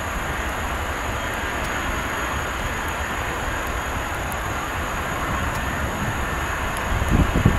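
Boeing 747-245F's jet engines running steadily, a constant rumbling roar with a thin high whine over it. Low gusts of wind buffet the microphone about seven seconds in.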